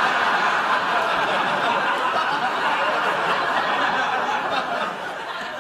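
Studio audience laughing: a long, dense wave of many people's laughter that fades near the end.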